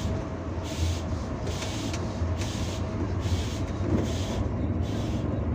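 Intercity coach driving along a highway, heard from inside the cabin: a steady low engine and road drone, with a hiss that swells and fades about once every 0.8 seconds.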